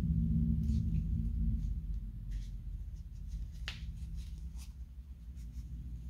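Faint clicks and rustles of a large plastic crochet hook working thick cotton cord, as it is pulled through the stitches, with one sharper click a little past the middle. A low steady hum lies underneath.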